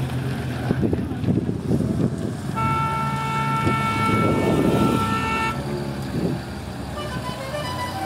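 Old car horn held on one steady note for about three seconds, over the low running of vintage car engines driving slowly past.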